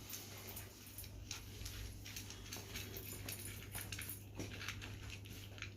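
Cats eating dry food: faint, irregular little crunches and clicks against their bowls, over a low steady hum.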